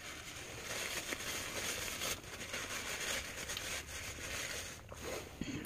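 Paper food wrapper rustling and crinkling as it is handled, a dense run of small crackles that fades near the end.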